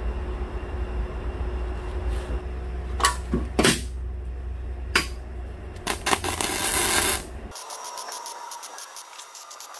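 Metal clinks and knocks as steel parts are set in place over a steady low hum, then a stick-welding arc crackling and hissing from about six seconds in as a tack weld is struck, with a fainter rapid crackle after it.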